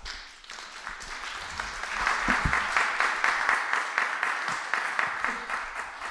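Audience applauding at the end of a talk, swelling over the first two seconds into steady, dense clapping.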